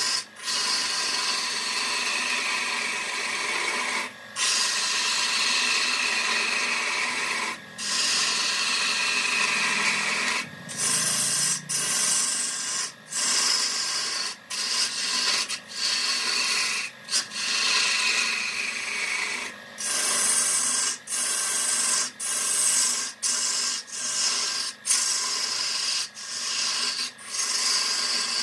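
A tool scraping against wood spinning on a lathe: a harsh, steady rasp with a faint hum under it, breaking off for an instant many times, more and more often in the second half.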